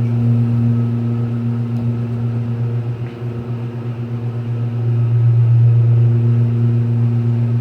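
Delaware hydraulic elevator's pump motor running with a loud, steady hum as the car rises, heard from inside the cab. The hum swells a little past the middle.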